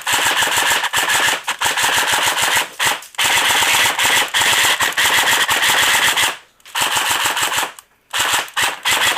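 Stock Echo1 Red Star AK-47 airsoft electric gun shooting BBs in rapid strings of shots, broken by brief pauses every second or two, with a longer pause about two-thirds of the way through. It is a little loud.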